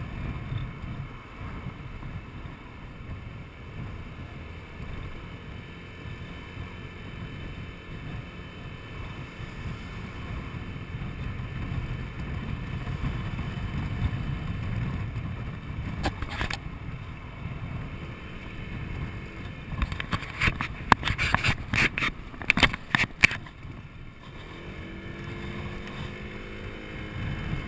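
Honda Forza 125 scooter on the move: its single-cylinder engine and wind rumbling steadily on the handlebar microphone. About two-thirds of the way through comes a run of loud, sharp crackles and knocks, and near the end a rising whine.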